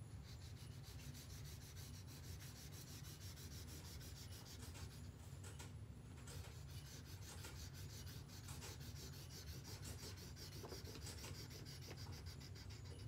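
Marker tip scribbling rapidly back and forth on paper, colouring in a shape. It is faint, with a brief pause about six seconds in.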